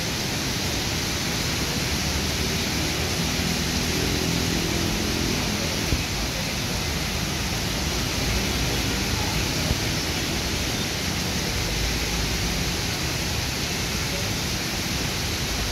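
Heavy rain pouring steadily, a loud even hiss, with motorcycles and cars passing on the wet road. An engine hums briefly a few seconds in.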